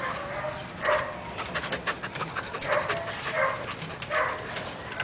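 A caged dog giving several short whining yelps, with clicks and knocks from its claws scrabbling on the bamboo slats of the cage.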